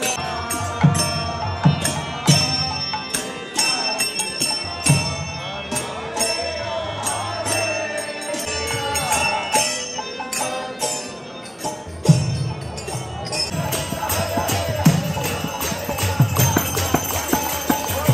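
Live kirtan: a voice chanting a devotional melody over a hand drum and small cymbals struck in a steady rhythm. The beat gets busier about twelve seconds in, with the crowd clapping along near the end.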